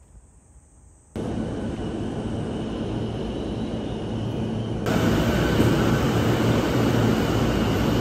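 Train platform noise: a loud steady rumble with a faint whine, starting suddenly about a second in and growing louder about five seconds in as a silver, orange-striped commuter train runs beside the platform.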